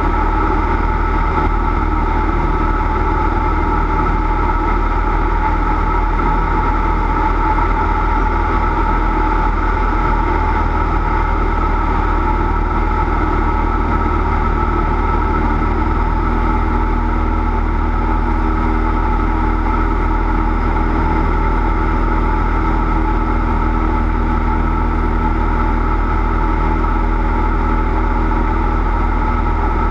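Cessna 172's piston engine and propeller running steadily, a constant drone, with its tone shifting slightly about halfway through.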